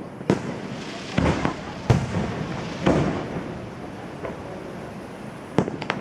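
Aerial fireworks shells bursting: a string of sharp bangs about a second apart, each trailing off in rumble and crackle, with a quick cluster of bangs near the end.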